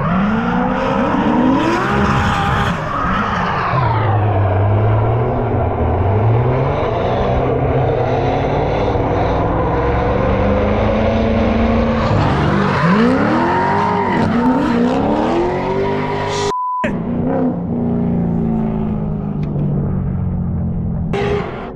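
Drift cars at high revs, their engines repeatedly rising and falling in pitch as they slide through a corner in tandem, with tyre squeal. The sound cuts out completely for a moment about two-thirds of the way through.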